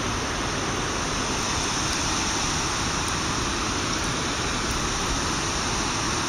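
Steady rushing of water pouring over a dam spillway, an even roar of falling water with no breaks.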